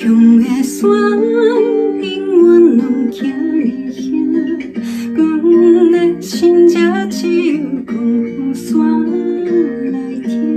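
A woman singing a slow Taiwanese Hokkien ballad solo over a plucked-string instrumental backing. Her voice drops out near the end, leaving the accompaniment.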